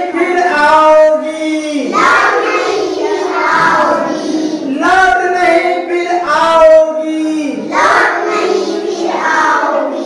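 A group of young children singing a Hindi rhyme together in unison, in short repeated phrases.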